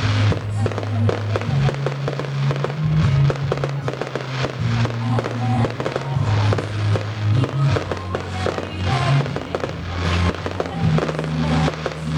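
Fireworks finale: a dense run of rapid pops, bangs and crackles from aerial shells, with music and a low bass line playing underneath.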